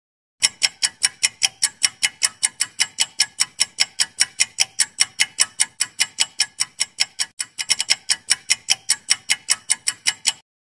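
Clock-ticking sound effect for a ten-second answer countdown timer: rapid, even ticks that start and stop abruptly, with a brief stumble in the rhythm about three-quarters of the way through.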